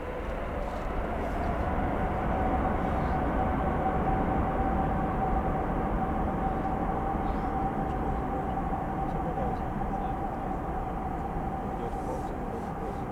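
Jet engine noise of a Lufthansa Airbus A350-900 departing at takeoff power: its two Rolls-Royce Trent XWB turbofans make a heavy roar with a steady whine. It swells about a second in and eases off gradually towards the end.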